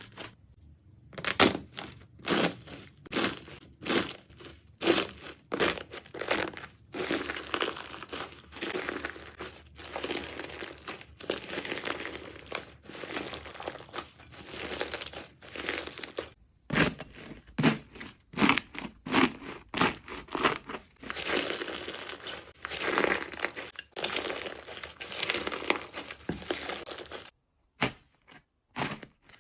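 Jelly slime being squeezed and pressed by hand: a run of wet squishes and crinkly pops, about one or two a second, with a short pause near the end.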